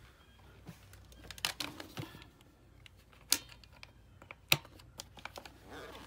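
Light handling noise: irregular small clicks and crinkling rustles, with two sharper taps in the second half. No motor is running.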